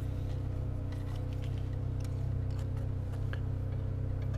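Steady low hum with a few faint light ticks as a first-generation Volvo XC90 is rocked on its suspension. No squeak is heard: the rear suspension stays quiet after the repair.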